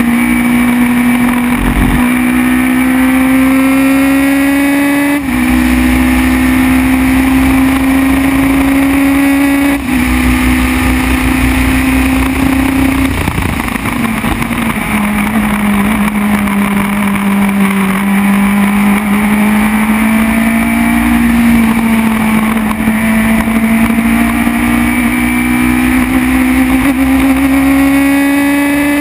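Formula BMW single-seater's motorcycle-derived 1.2-litre inline-four at full throttle, heard onboard over wind noise. The note climbs through the gears, with quick upshifts about five and ten seconds in. Around halfway it falls back and holds lower, then climbs steadily again to another shift at the end.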